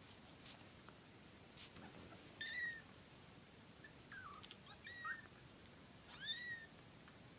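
Young kittens mewing: about four short, high-pitched mews, the first about two seconds in and the last near the end, with a few faint rustles from the squirming pile.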